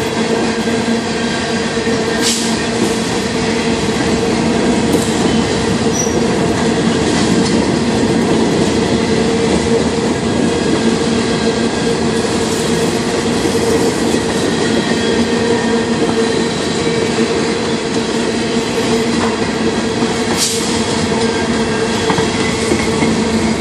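Covered hopper cars of a freight train rolling past close by: steel wheels running on the rails in a continuous rumble with a steady droning hum, and a few sharp clacks now and then.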